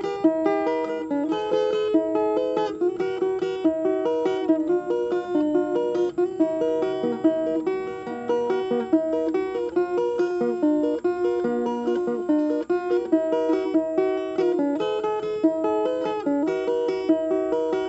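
Plucked string instrument playing a fast run of picked notes, a busy melody with chords, evenly loud throughout.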